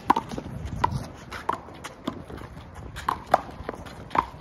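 Rubber handball rally: the ball smacks off players' hands, the concrete wall and the court in a string of sharp, irregularly spaced slaps, about six or seven in four seconds.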